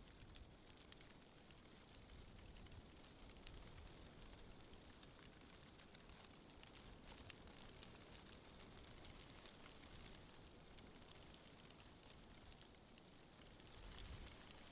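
Faint, steady wind with a low rumble, over many fine scattered crackling ticks.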